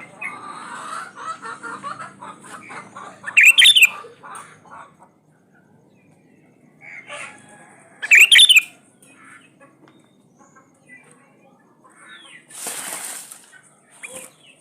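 Sooty-headed bulbul (kutilang) calling: a run of soft chirps over the first few seconds, then two loud, short whistled phrases about three and a half and eight seconds in. A brief rustle comes near the end.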